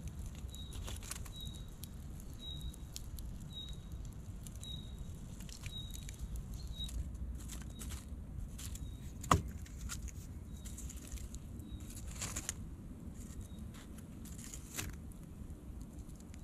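Hot wood embers and ash crackling around a tomato roasting in them, with light scraping and prodding in the ash and one sharp snap about nine seconds in. A short high chirp repeats about once a second through most of it.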